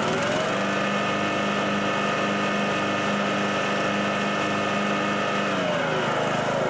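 Husqvarna riding mower running with its cutter deck engaged and raised, spinning the blades to air-dry the deck after a washout. The running note rises at the start, holds steady, then drops in pitch about five and a half seconds in.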